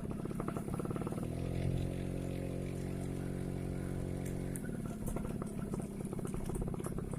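Small motorcycle engine running under way, its note uneven at first, then holding steady for about three seconds before going choppy again near the end.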